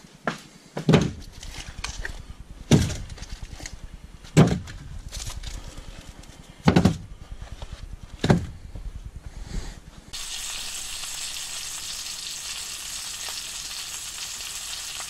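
Split firewood pieces knocked down one by one into a wooden wood box: a string of hollow wooden knocks, five loud ones over about eight seconds. About ten seconds in this gives way suddenly to a steady hiss.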